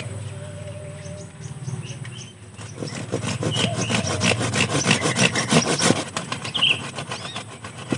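Small hand pruning saw cutting through a woody branch at the trunk of a sancang bonsai. It starts about two and a half seconds in with rapid back-and-forth strokes.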